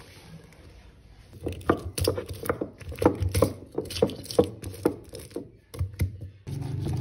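Stone pestle pounding shallots, garlic, chillies and spices in a volcanic-stone mortar (cobek), a run of hard knocks at about four a second that starts about a second and a half in.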